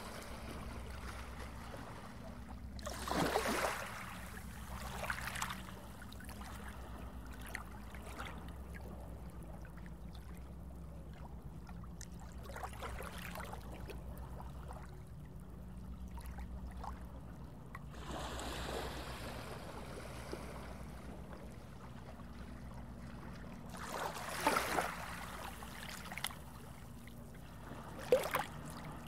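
Underwater water ambience: a steady low rumble with brief swishes of moving water now and then, the loudest about three seconds in and again past the three-quarter mark.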